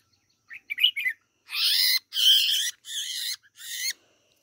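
Red-whiskered bulbul giving a few short chirps, then four loud, harsh calls of about half a second each, the scolding distress calls of a bird held in the hand.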